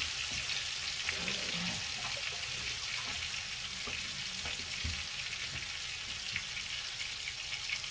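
Two beef steaks searing in hot oil in a frying pan: a steady sizzle with scattered small pops and crackles.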